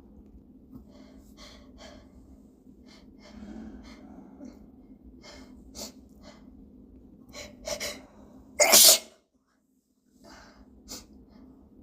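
A person's hitching sneeze build-up: a string of short, catching breaths that grow louder, then one loud sneeze about nine seconds in that stops abruptly. A few faint breaths follow.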